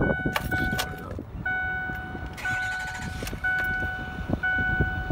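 Ford F350 dashboard warning chime repeating about once a second, plausibly for the open driver's door, over a low rumble and knocks.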